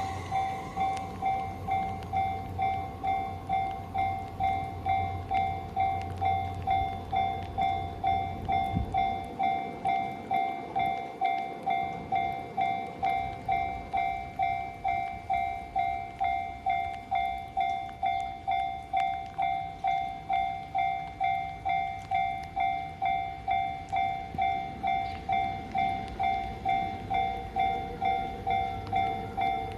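Japanese railway level-crossing warning bell ringing steadily, an electronic ding about twice a second. Under it the low rumble of a passing train stops about nine seconds in.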